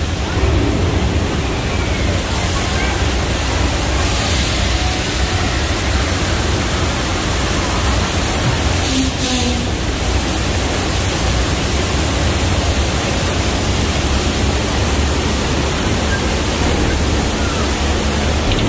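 Staged earthquake and flood special effect: a loud, steady rush of pouring water over a deep rumble.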